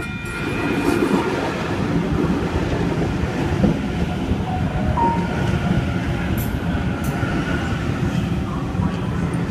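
Sydney Trains Waratah (A set) double-deck electric train running into the platform, a steady rumble of wheels on the rails that builds over the first second, with a brief squeal about halfway through.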